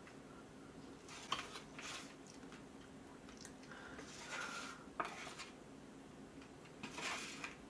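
Plastic spoon scraping and tapping as cooked rice is scooped from a plastic instant-rice tray into a paper cup noodle cup: a few short, quiet scrapes and a couple of sharp clicks.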